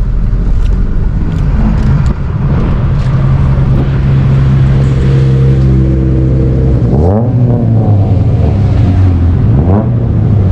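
Car engines running nearby, with a steady drone and two quick revs, one about seven seconds in and another near the end.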